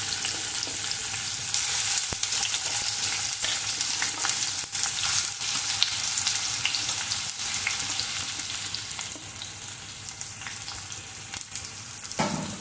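Sliced onions sizzling and crackling in hot oil in a stainless steel pot. The sizzle grows louder about a second and a half in, then slowly dies down.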